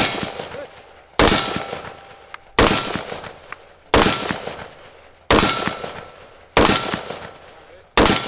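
Slow, evenly paced single shots from an AR-15-style rifle, seven in all, about 1.3 seconds apart. Each shot has a fading tail with a faint metallic ring in it.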